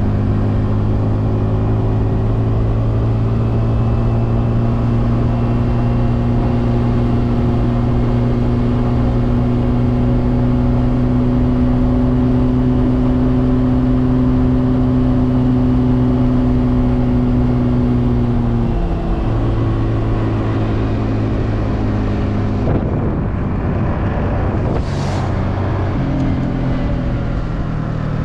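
Honda Navi's small single-cylinder four-stroke engine running at a steady cruising speed, heard from the rider's seat. About two-thirds of the way through the throttle closes and the engine note drops as the bike slows.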